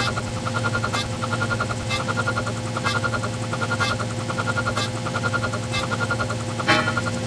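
A looping electronic sound effect: rapid high beeps in short groups over a steady tone and a low hum, with a sharp click about once a second and a louder click near the end.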